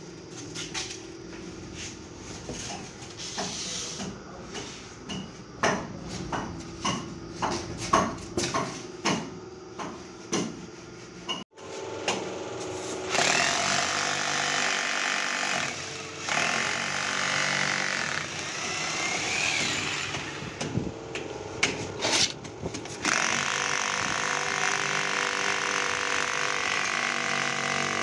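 Stiff polystyrene (thermocol) sheets being handled, giving a run of sharp knocks and creaks. Then an electric drill boring through a thermocol panel into the wall behind for wall plugs, running loud and steady in several stretches with short pauses.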